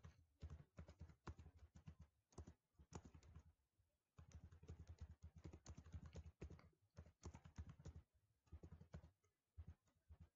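Faint typing on a computer keyboard: quick runs of key clicks, with a brief pause about four seconds in.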